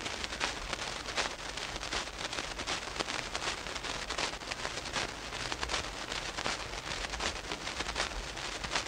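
Surface noise of an old radio transcription recording: steady crackle with dense ticks and clicks over hiss and a low hum, with no voice.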